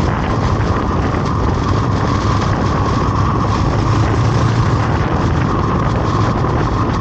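Steady vehicle engine running under way with loud wind noise on the camera's microphone.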